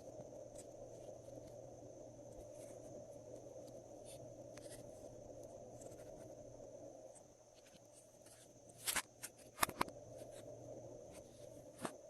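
Glossy slime being worked by hand, giving soft sticky clicks and small pops, with a few sharper, louder pops about nine to ten seconds in and once more near the end, over a steady faint hum.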